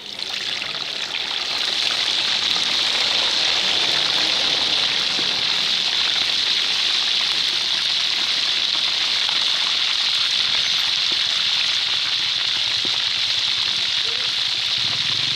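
Snakehead fish deep-frying in hot oil in a wok: a loud, steady sizzle that starts as the fish goes into the oil and builds over the first couple of seconds.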